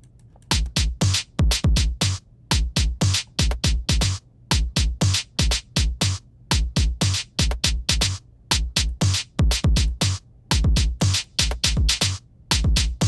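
Programmed drum-machine beat of kick drum, snare and hi-hats played back in a steady repeating pattern. It starts about half a second in and loops in bars of about two seconds, with the hi-hats just run through processing.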